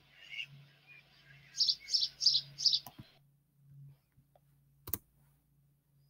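House sparrow chirping, played from a recording: a few faint chirps, then four quick chirps in a row from about a second and a half in, cut off abruptly around three seconds. A single sharp click near five seconds.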